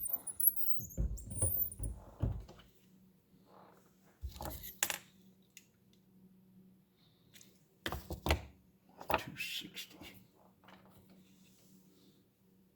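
Metallic clinks and knocks of handloading work at a reloading press: brass cartridges and tools handled in several short bouts, with quieter gaps between them.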